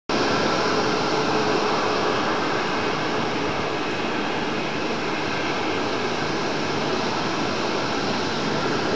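Loud, steady jet engine noise of an airliner taking off, a continuous rushing roar with a few faint steady tones in it, starting suddenly and dropping away near the end.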